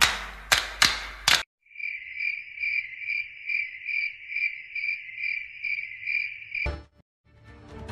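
Cricket chirping sound effect: a steady high trill pulsing about three times a second, which starts and cuts off abruptly. It follows a few sharp hits at the start.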